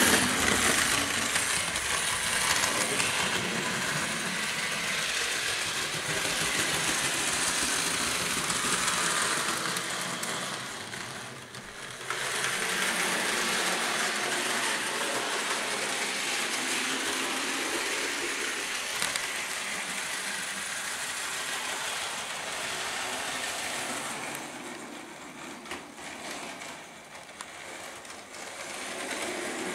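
Model Thomas the Tank Engine train running on its track: a steady noise from the small electric motor and the wheels on the rails. It drops away briefly about a third of the way in and again near the end.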